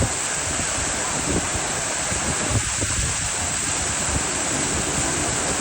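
Hot-spring water of the Yubatake steadily rushing and babbling as it flows through the wooden channels.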